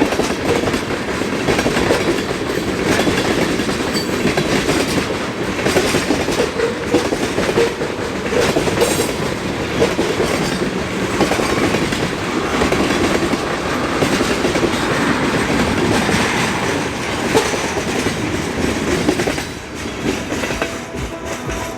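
Mixed freight train rolling past, its wheels clacking over the rail joints in a loud, steady rush of noise that eases slightly near the end.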